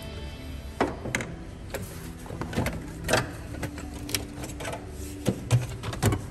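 Irregular plastic knocks, clicks and rattles as an engine's air-intake box and ribbed rubber intake duct are pulled loose and lifted off.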